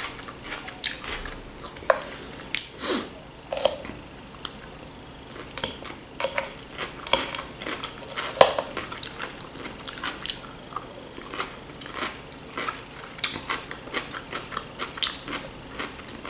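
A person chewing food close to the microphone, with irregular wet mouth clicks and smacks.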